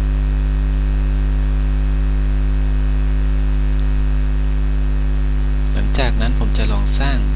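Steady electrical mains hum in the recording, a constant low drone with a buzzy overtone. A man's voice starts speaking about six seconds in.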